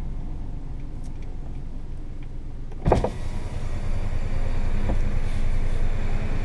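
Cabin sound of a Kia Picanto's 1.0-litre three-cylinder engine and road noise at low speed in traffic. A single sharp thump comes about three seconds in, after which the engine and tyre noise grow a little louder.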